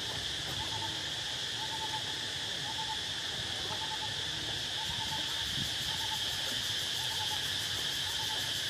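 Steady high drone of insects with a short hooting call repeated at an even pace, about every two-thirds of a second, likely a bird.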